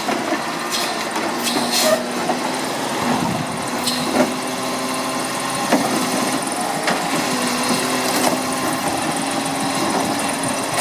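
Garbage truck running, a steady engine hum with a few sharp knocks and clanks.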